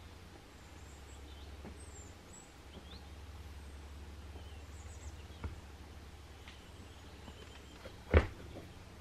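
Chef's knife chopping through soft bread dough onto a wooden cutting board: a light knock about five seconds in and a louder one near the end. A low steady hum and faint bird chirps sit underneath.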